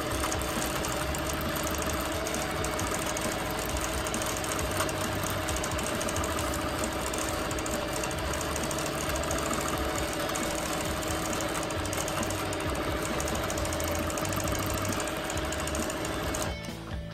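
Bernina Q24 longarm quilting machine stitching: a steady motor hum with the rapid chatter of the needle. It stops near the end as guitar music comes in.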